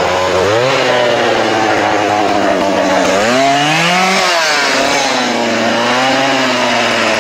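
A small engine running and revving. Its pitch steps up about half a second in, climbs to a peak at around four seconds, then drops back and wavers.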